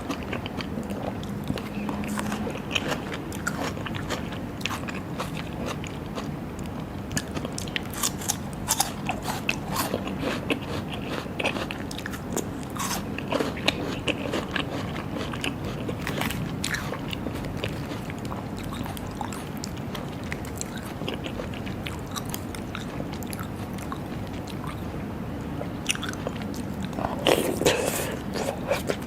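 Close-up eating sounds of raw seafood being bitten and chewed: many short wet clicks and crunches, with a louder burst of sound near the end.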